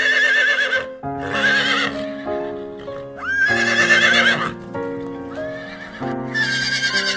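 Horse whinnying repeatedly: several loud, shrill, quavering neighs over steady background music.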